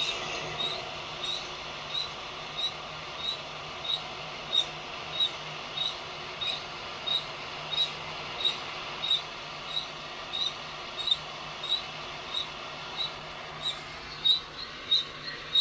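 A rotating stainless-steel flour-sifter roasting drum, driven by a cordless right-angle drill, squeaking in a steady rhythm about one and a half times a second. Under it runs a steady hiss and a low hum.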